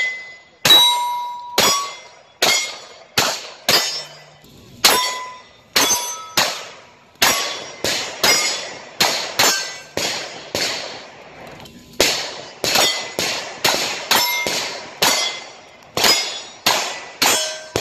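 Pistol-caliber carbine firing a fast string of about thirty shots at steel targets. Each shot is followed by the clang of a struck steel plate ringing briefly, with a short pause about eleven seconds in.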